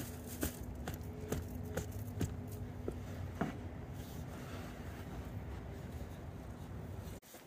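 Steel tines of a Razorback digging fork being stepped down into soil through wood-chip mulch: a series of crunches and scrapes, about two a second at first, then a softer scratching. A steady low hum sits underneath.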